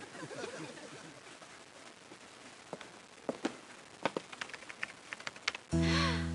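Computer keyboard keys clicking in a loose run of separate taps. Near the end a sudden loud music sting of held notes cuts in.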